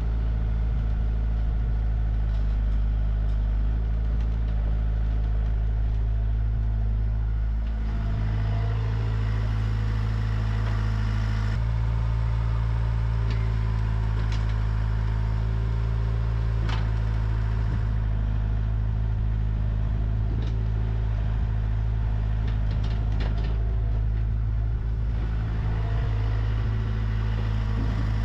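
Diesel engine of a Komatsu PC60 hydraulic excavator running steadily as it works, with a few short clanks of metal in the middle stretch.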